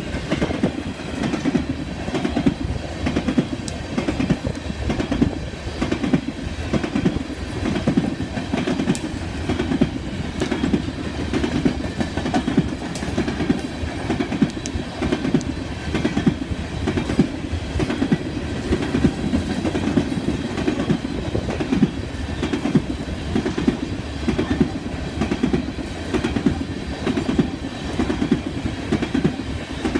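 Empty coal hopper cars of a freight train rolling steadily past at close range, their steel wheels clattering over the rail joints in a continuous stream of clanks.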